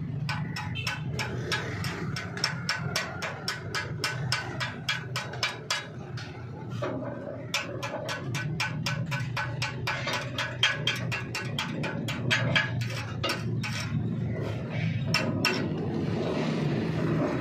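Rapid metallic tapping of a chipping hammer knocking slag off fresh weld beads on steel, several sharp strikes a second with a short pause about six seconds in, over a steady low hum.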